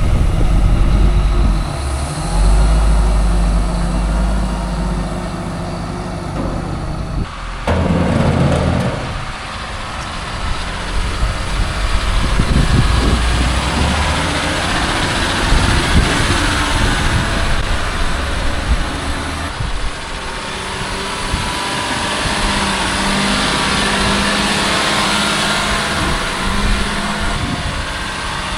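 Heavy farm machinery's engine running steadily, with an abrupt change in the sound about seven seconds in.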